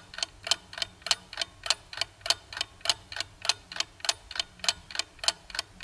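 Ticking-clock sound effect: rapid, even ticks, several a second. It marks the countdown while a quiz question waits to be answered.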